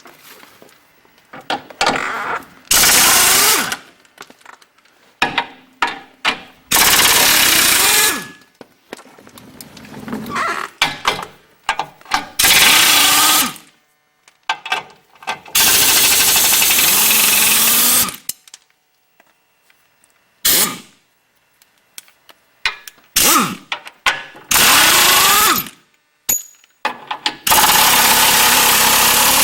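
Impact wrench running in repeated bursts of one to three seconds, spinning the engine-support and motor-mount nuts and bolts loose, with short taps of the trigger and metal clinks in between.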